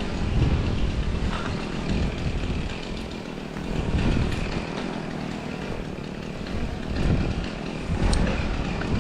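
Milwaukee battery-powered top-handle chainsaw running and cutting, a dense, uneven noise over a heavy low rumble that swells and eases a few times.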